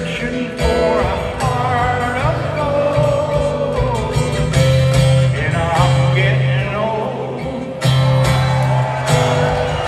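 Live band performance: a man singing a wavering melody over guitar accompaniment with steady sustained notes.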